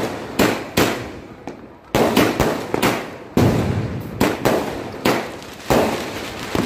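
Aerial fireworks bursting overhead: a rapid string of sharp bangs, two or three a second at uneven spacing, each fading quickly before the next.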